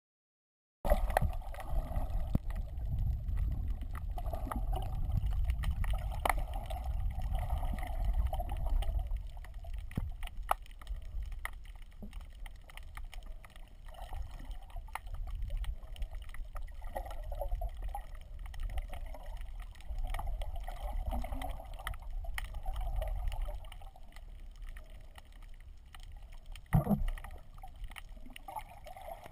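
Muffled underwater sound picked up by a camera in a waterproof housing: a low, steady rumble of moving water with scattered clicks, and one sharp knock near the end.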